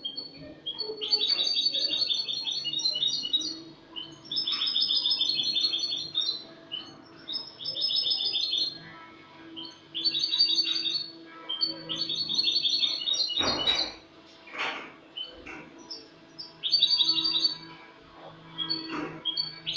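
European goldfinch (Spanish jilguero) singing its clean song (cante limpio) in repeated bursts of rapid twittering notes, each burst about a second long, coming every two seconds or so. A single sharp thump comes about two-thirds of the way in, over a faint steady hum.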